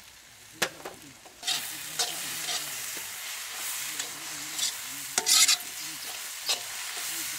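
Onion masala frying in oil in a kadai, sizzling steadily as it is stirred, with sharp knocks and scrapes of the stirring utensil against the pan. After a couple of knocks in the first second, the sizzle comes up and stays, with a louder burst just past the middle.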